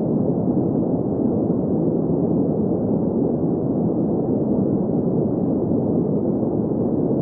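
Steady synthetic green noise: an even, unchanging hiss centred in the low-middle range, with little treble above about 2 kHz.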